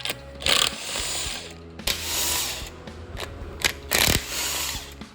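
A power tool spinning out bolts in about four short bursts, each with a hiss and a ratcheting whir, with a few sharp clicks between them. This happens while a blown LS engine is being taken apart.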